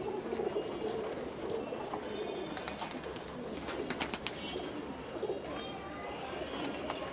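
A flock of domestic pigeons cooing steadily at close range while they feed. A run of sharp clicks comes between about two and a half and four and a half seconds in.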